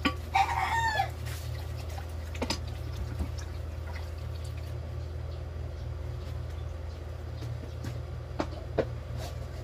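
A steady low household hum with a few sharp clicks and knocks, and a short chirping call about half a second in.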